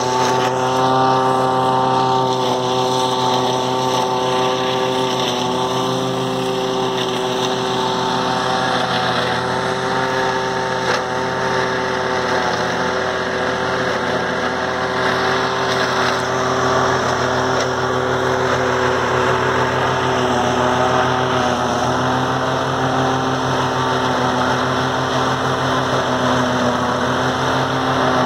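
Valtra tractor engine running at steady working revs, driving a forage harvester that chops maize for silage: a loud, unbroken drone with a steady pitch and the chopper's rushing noise over it.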